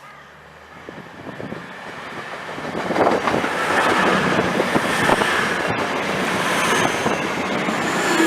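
A train approaching and running through the station, building from faint to a loud steady rumble and rattle about three seconds in, with a thin high whine joining near the end.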